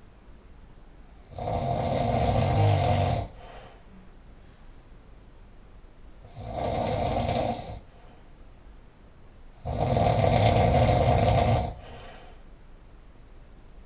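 A person snoring very loudly: three long, coarse snores about every four seconds, each lasting one to two seconds, with quiet breathing in between.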